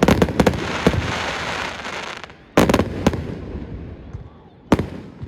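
Aerial fireworks bursting: a quick run of sharp bangs with a crackling hiss after them lasting about two seconds, then two more bangs and a last single bang near the end.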